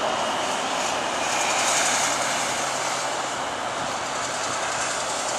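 Jet engines of a Boeing 747-436 at approach power as the airliner passes low on short final, just before touchdown: a steady rushing jet noise that swells to its loudest about two seconds in and then slowly fades.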